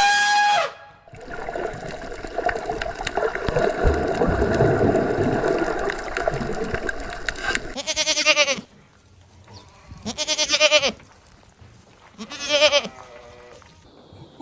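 Three wavering bleats from a sheep or goat type of farm animal, each just under a second long and a couple of seconds apart, in the second half. They come after several seconds of steady rushing noise.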